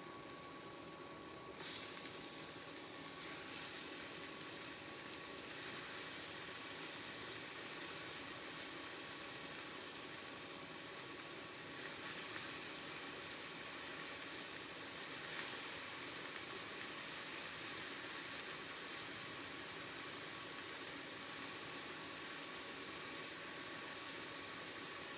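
Food sizzling in a frying pan: a steady hiss that grows louder about one and a half seconds in, with a faint steady whine underneath.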